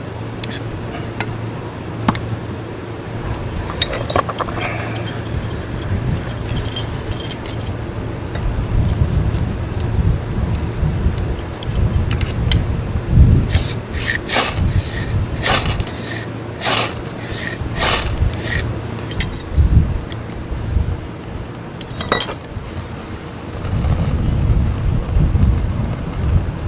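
Fire being lit with fatwood in a fire pit: a run of sharp scrapes and clinks, thickest in the middle of the stretch, over a steady low rumble.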